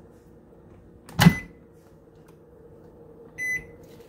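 Microwave oven keypad: a loud knock about a second in, then one short, high electronic beep from a button press near the end, over a faint steady hum.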